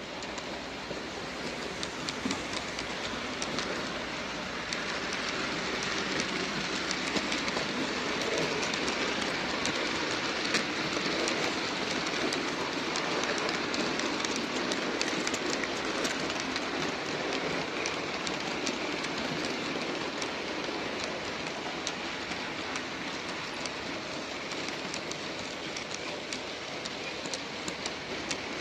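Freight train passing, its wheels clicking over the rail joints in a long run of clicks over a continuous rumble. It grows louder over the first ten seconds or so and eases slightly toward the end.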